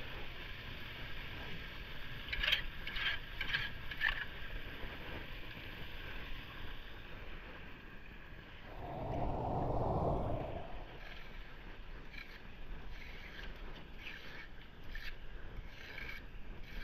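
Floodwater running steadily over pavement into a metal storm-drain grate. A few seconds in there is a quick series of scrapes and clicks as gloved hands pull leaves off the grate. About nine seconds in, a low rush swells and fades over a couple of seconds.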